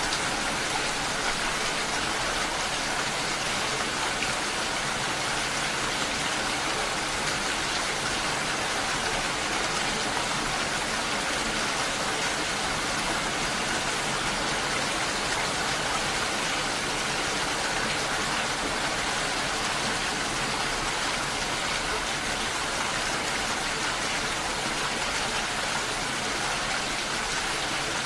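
Steady rain falling, an even hiss with no separate drops standing out.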